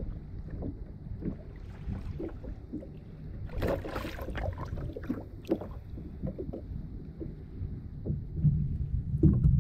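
Sea water lapping and slapping against a plastic kayak hull, over a steady low wind rumble on the microphone, with scattered small knocks and clicks. The knocks are busiest about four seconds in, and the low rumble swells near the end.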